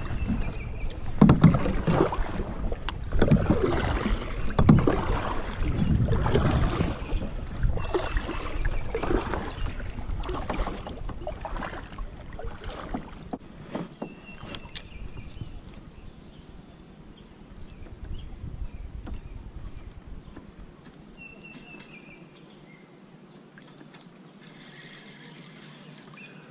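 Kayak paddle strokes dipping and splashing in the water, a surge every second or two, with wind rumbling on the microphone. About halfway through the paddling stops and only faint water and wind remain.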